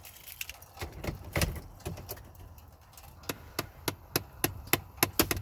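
Sharp, evenly spaced ticking from behind the glove box of a Ford Explorer's dash, about three ticks a second, starting a little past halfway. This is the strange tick-tick fault, traced to an electrical part that is then unplugged. A few knocks from handling come before it.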